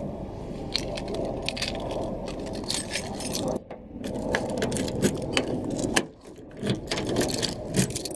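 Small metal objects clinking and jangling as they are handled, many short clicks over a rustling, shuffling background, with two brief lulls.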